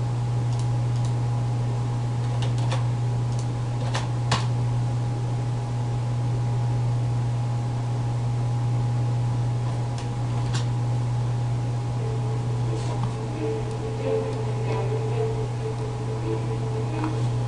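Steady low electrical hum with a thin higher whine over it, broken by a few sharp clicks, two of them close together about four seconds in. Faint wavering tones come in over the last few seconds.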